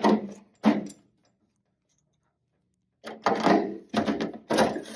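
Sheet-metal fender patch panel being handled and pulled off the fender: two short scraping rattles, a pause of about two seconds, then a run of several more metallic scrapes and knocks.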